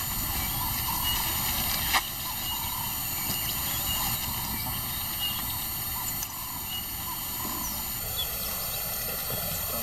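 Outdoor bush ambience: a steady low rumbling noise with short high chirps scattered through it, and a sharp click about two seconds in.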